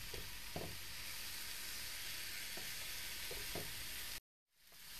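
Grated carrot, courgette, potato and onion sizzling steadily in olive oil in a frying pan, stirred with a wooden spatula that scrapes the pan a few times. The sound cuts out for a moment near the end.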